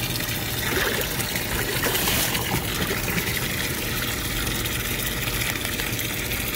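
A steady stream of water running into a plastic fish-shipping bag that already holds water, splashing and bubbling at the surface.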